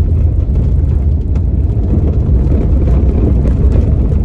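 Inside the cabin of a manual car on the move: a steady low rumble of engine and road noise.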